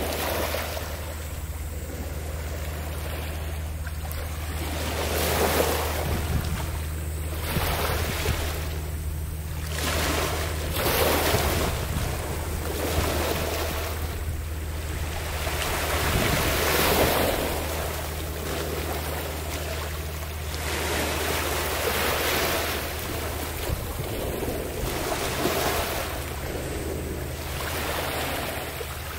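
Small sea waves washing onto a pebbly shore, a swell of surf about every one and a half to two seconds, over a steady low hum.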